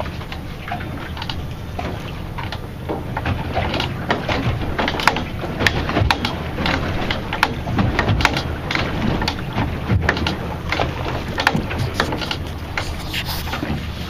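Boat engine running steadily at idle, with frequent irregular sharp clicks and slaps over it.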